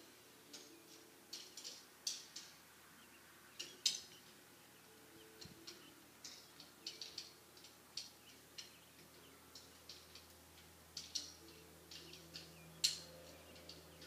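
Irregular light ticks and taps of a drawing tool on the drawing surface, a few a second, with two sharper taps about 4 and 13 seconds in.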